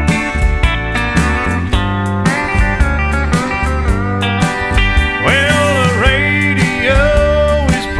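Country music with steel guitar over a steady bass and drum beat, with gliding slide notes about two-thirds of the way through.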